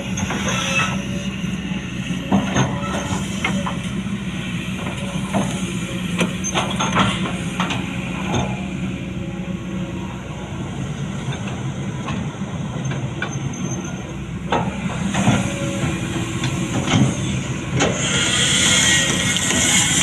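Kobelco SK200 excavator's diesel engine running steadily under work, with frequent short clanks and knocks through it. A rushing hiss swells near the end.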